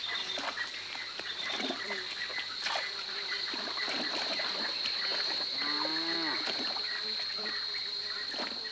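A water buffalo lows once about six seconds in, a short call that rises and then falls, over scattered splashing of water and a steady high-pitched drone.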